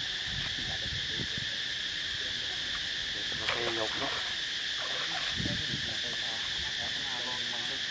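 Steady high-pitched drone of insects, with a brief sharper sound about three and a half seconds in.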